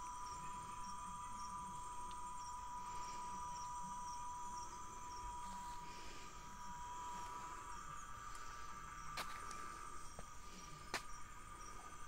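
Cicadas singing, several steady high drones at once; one drone cuts out about two-thirds of the way through while another carries on, the cicadas taking turns. Two sharp clicks near the end.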